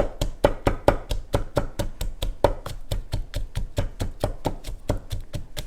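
Pestle pounding chili, garlic and papaya in a mortar for som tam: rapid, even strokes, several a second, going on without a break.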